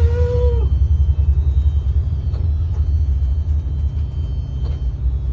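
Steady low rumble, with a short pitched call, rising then falling, in the first half second and a few faint knocks later on.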